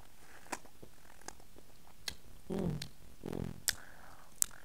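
Close-up mouth sounds of eating king crab: a handful of sharp lip smacks and sucking clicks, with two short low hums about halfway through.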